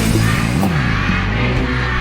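Band music playing an instrumental passage of the song, with sustained instrument tones and one sliding bend in pitch about half a second in.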